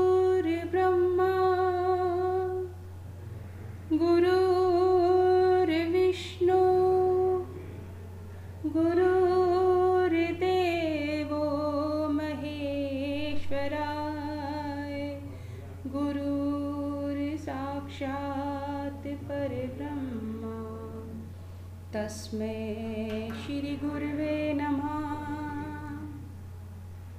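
A solo voice singing a slow melody in long held notes, in phrases of a few seconds with short breaks between them, over a steady low hum.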